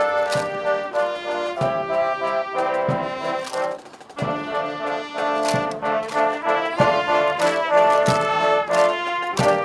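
Background music led by brass instruments, playing held chords over a steady beat. It drops away briefly about four seconds in.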